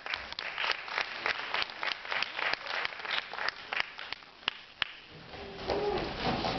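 Audience clapping that thins out to scattered claps and stops about five seconds in. Just after, a held pitched tone begins.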